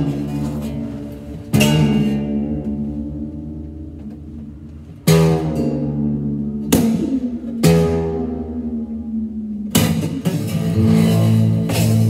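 Acoustic tenor bass guitar tuned to a drone, strummed in single strokes that ring out and die away slowly, echoing in a drainage tunnel. About five separate strums, then quicker continuous strumming from about ten seconds in.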